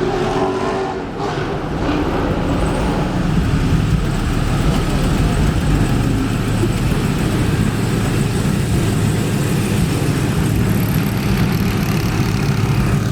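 Car engine running steadily, loud throughout.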